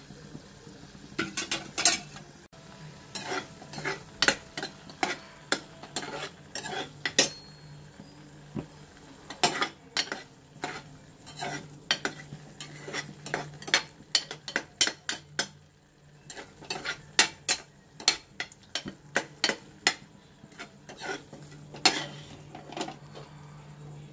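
Metal ladle stirring and scraping thick, nearly set rose apple jam in a metal pressure-cooker pan. It makes frequent irregular clicks and knocks of metal on metal.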